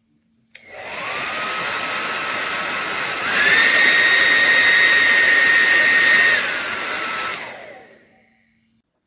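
Beurer hair dryer switched on and running on its lower setting, then switched up to its higher, louder setting with a higher whine about three seconds in. It drops back to the lower setting, then is switched off, and the motor whine falls away as it spins down.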